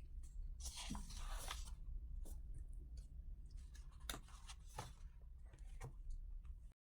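Quiet handling sounds in a small room: a brief rustle about a second in, then a few scattered light clicks and taps.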